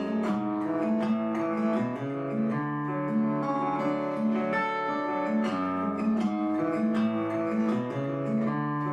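Acoustic guitar playing the instrumental intro of a country song, strummed chords and ringing notes in a steady rhythm.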